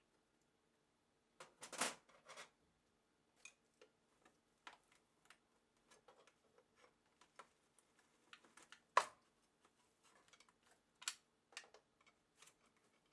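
Scattered small clicks, taps and brief scrapes of hand tools and metal parts being handled while an electronic instrument is taken apart. The clicks come irregularly, with one sharp click about nine seconds in and a short scraping rattle near the start, over a faint steady hum.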